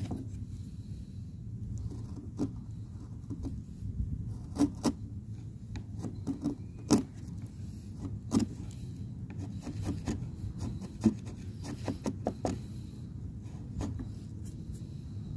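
A wood chisel pushed by hand, paring and scraping waste out of slots cut into the end of a softwood block: rough scraping broken by irregular sharp clicks and cracks as chips split away.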